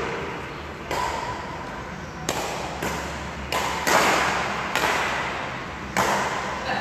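Badminton rackets striking a shuttlecock in a rally: about six sharp hits roughly a second apart, each ringing on in the hall's echo, the loudest about four seconds in.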